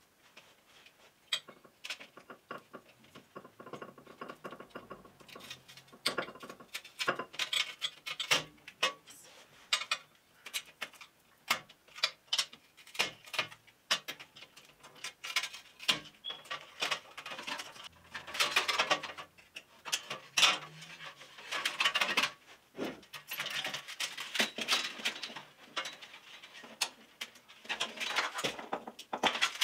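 Hands working at a glass shelf: many small clicks and taps as light-strip wires and clips knock against the glass, with stretches of rubbing and scraping, loudest about two-thirds of the way in, as the strips and their sticky adhesive are worked off the glass.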